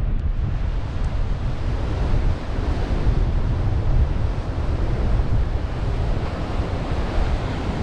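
Wind buffeting the microphone with a strong, uneven low rumble, over the steady wash of ocean surf breaking on the shore.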